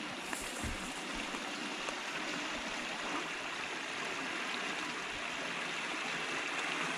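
Water spilling over the edge of a low concrete weir, a steady rush.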